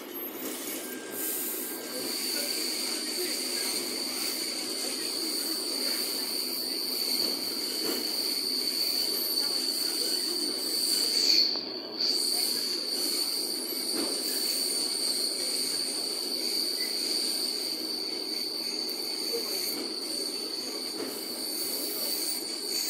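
A moving passenger train heard from inside the carriage: a steady rumble of wheels on rail, with a high steady squeal that sets in about two seconds in. The squeal breaks off briefly around the middle with a short swell in loudness, then carries on.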